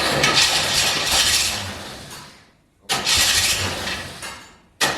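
Chevy 4-litre straight-six turning over on the starter in three bursts of about two seconds each, without catching. It is short of fuel: the mechanical fuel pump has not yet drawn petrol through to the filter.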